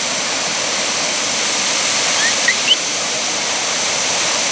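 Steady, loud rush of 'Akaka Falls, a 442-foot waterfall, plunging into its gorge. A bird gives three short rising chirps about two seconds in.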